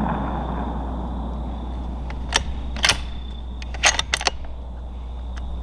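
The rolling echo of a .308 Winchester rifle shot fades out over the first second. Then come a few sharp mechanical clicks and clacks from the rifle being handled: two about two and a half seconds in, then three close together about four seconds in.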